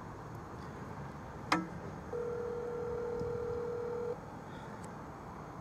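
A sharp click with a quick falling chirp, then a single steady electronic tone held for about two seconds and cut off suddenly, like a telephone busy tone.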